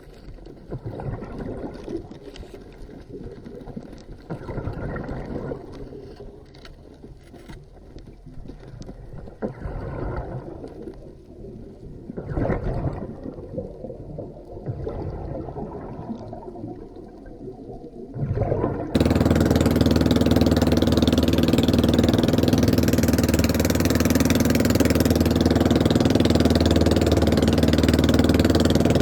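Irregular swells of water sloshing and gurgling. About nineteen seconds in, after an abrupt cut, a fishing boat's engine runs loudly and steadily at an even pitch.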